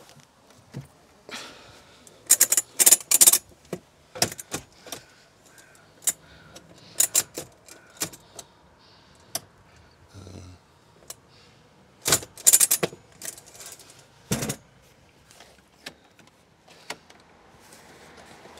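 Mercedes Marco Polo campervan's rear parcel shelf being worked into place: irregular clattering, knocks and metallic rattles as its frame is fitted onto its mounts and locked in. The loudest clatters come about two to three seconds in and again about twelve seconds in, with a sharp knock soon after.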